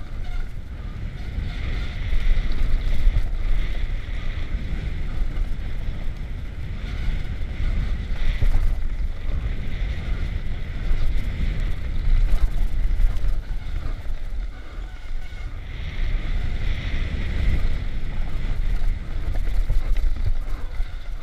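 Wind buffeting a helmet-mounted camera's microphone over the rumble and rattle of a mountain bike descending a dirt trail at speed, surging and easing with the rider's speed.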